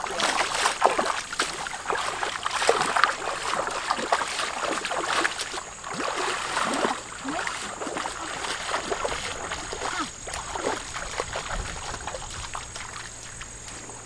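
Feet wading through a shallow stream, with irregular sloshing and splashing steps that grow fainter as the walkers move away.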